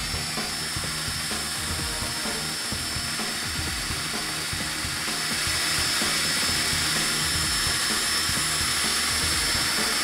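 Worx cordless drill spinning a wire wheel brush against a rusty steel knife handle scale, scrubbing off the rust: a steady high whine with a scratchy hiss, a little louder from about halfway through.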